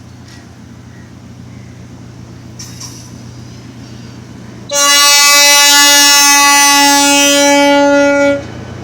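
Horn of a Sri Lanka Railway Class S13A diesel multiple unit giving one long, loud blast of a few seconds, starting about five seconds in. Before it, the train's low steady engine drone grows slightly louder.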